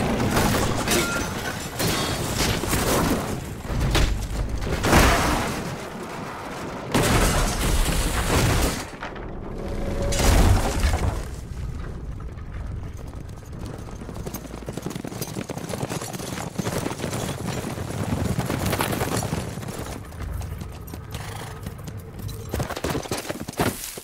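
Film action sound of an armored stagecoach under attack: gunfire, heavy booming blasts and a crash as the coach goes over. The loudest hits come in the first half. After that it settles into quieter, scattered noises.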